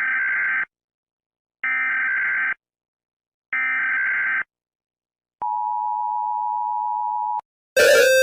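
Emergency Alert System alarm: three short bursts of the SAME digital header, each a buzzy data screech under a second long, followed by the steady two-tone attention signal for about two seconds. Near the end a different, louder alarm begins with pulsing beeps.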